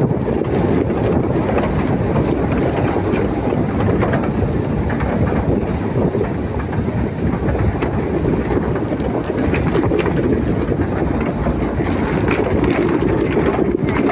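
Steady low rumble of a moving vehicle, with faint rattles and clatter over it.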